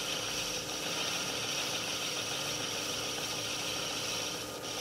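Metal lathe turning steel at 400 RPM under power feed, a brazed carbide tool taking a one-millimetre cut: a steady hiss over a low machine hum, dipping briefly near the end.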